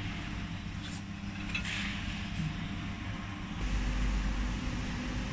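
Steady hum of a fiber laser jewelry cutting and marking machine, with a faint high whine. About three and a half seconds in, the whine stops and a deeper hum takes over.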